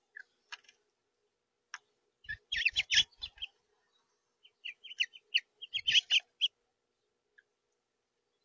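House finches chirping at a feeder in two quick bursts of short calls, one about two seconds in and one about five seconds in, with a few low knocks on the feeder tray during the calls.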